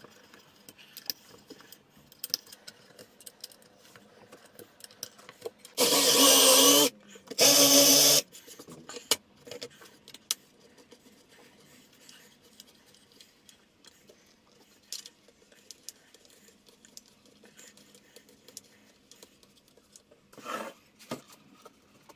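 Cordless drill-driver motor running in two short bursts of about a second each, driving screws into a pine frame, with a shorter, quieter burst near the end. Light clicks and knocks of handling tools and wood come between the bursts.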